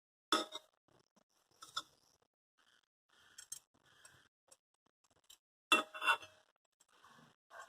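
A few sharp clicks and knocks of kitchen utensils and cookware being handled, one about a third of a second in, one near two seconds and a close pair about six seconds in, with faint scraping between.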